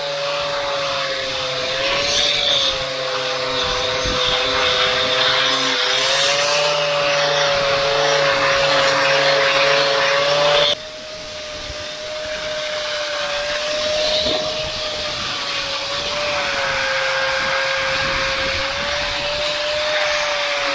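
Angle grinder running steadily as it strips paint from steel bar, its whine dipping and recovering slightly as the disc is pressed on. The sound drops suddenly a little under halfway through, then builds back up and runs on.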